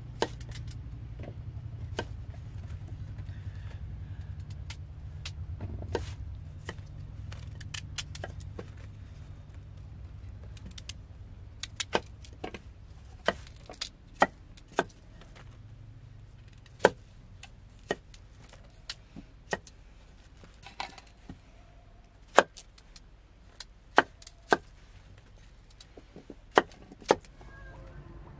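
Kitchen knife cutting potatoes on a wooden cutting board: irregular sharp knocks as the blade strikes the board, coming more often and louder in the second half. A low rumble sits underneath for the first ten seconds or so.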